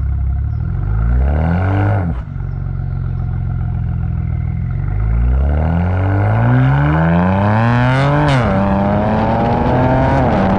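BMW N54 twin-turbo inline-six, fitted with upgraded Vargas OEM+ turbos, pulling under acceleration: the engine pitch climbs and then drops sharply at upshifts, about two seconds in, about eight seconds in and again near the end.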